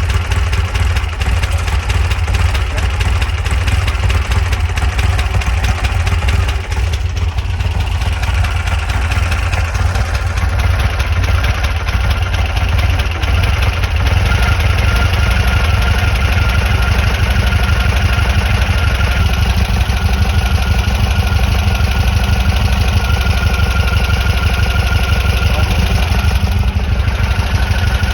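Air-cooled VW flat-four engine of a 1963 bus running steadily at idle, its speed picking up a little about halfway through.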